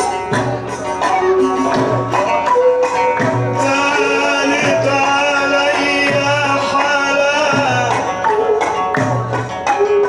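Live Egyptian Sufi dhikr music played through loudspeakers: hand drums beat a steady low rhythm, with tambourine jingles and clicks on top. A wavering melodic line swells through the middle.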